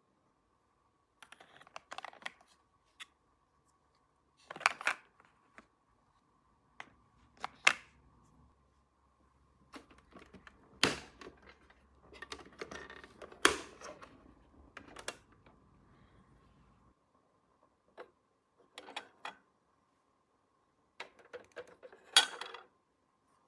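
Small plastic toy pieces being handled: irregular clicks and taps with light rustling, and a few sharper clacks as pieces are set down or snapped together.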